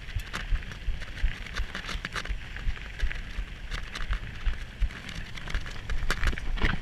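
Mountain bike riding over a dirt trail: tyres crunching and crackling over loose ground, with irregular knocks and rattles from the bike and buffeting on the microphone.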